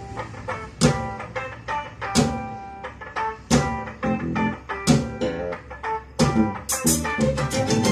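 Music with plucked guitar notes and sharp drum hits, played through Bowers & Wilkins 607 S2 bookshelf speakers with their bass-reflex ports plugged, alongside a subwoofer.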